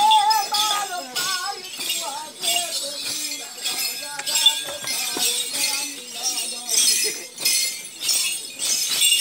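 Group singing of the ohaa chant of the Lamaholot sole circle dance, several voices in bending, sustained lines that are strongest in the first second or so. Under the singing runs a steady, crisp beat of about two strokes a second, keeping time with the dance.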